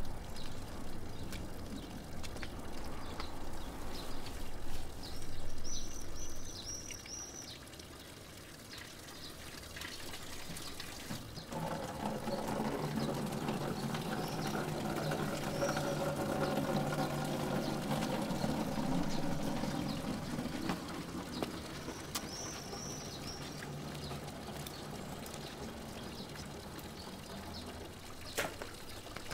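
Water pouring into a plastic bottle. It starts about eleven seconds in and runs steadily for about ten seconds. A few short bird chirps come before it and again near the end.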